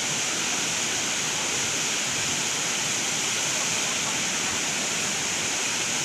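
The steady, even rush of the Ngabatata waterfall, falling about 100 m down a cliff into a pool.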